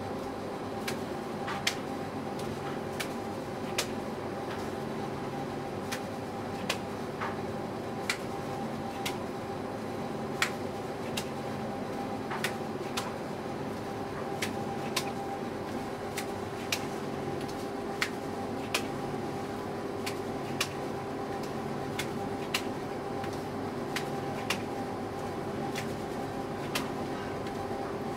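A steady mechanical hum, with sharp short knocks about once a second over it, fairly evenly spaced, like repetitive work in a restaurant kitchen.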